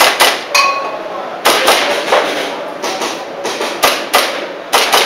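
Airsoft pistol firing a string of about a dozen sharp cracks at uneven intervals, a few followed by a short metallic ring.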